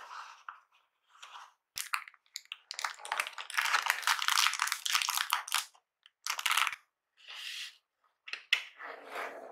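Unboxing handling sounds: papers and a non-woven fabric cover rustling and crinkling in a cardboard box, loudest in a long dense rustle in the middle, with sharp taps and clicks as the box is handled and its lid closed near the end.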